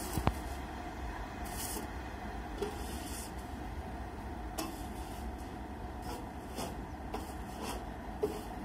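Distant freight train wagons rolling away on the track: a steady low rumble with scattered sharp clicks.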